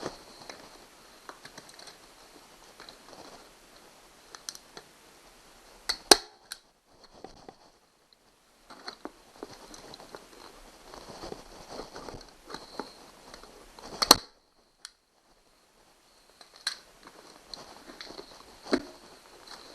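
Harbor Freight FastenPro 3-way manual staple gun firing staples into a plywood boat-seat base through a vinyl cover: three loud, sharp snaps several seconds apart, about 6, 14 and 19 seconds in, with a softer one between the last two. Quieter rustling and handling noise of the vinyl and tool runs between the shots.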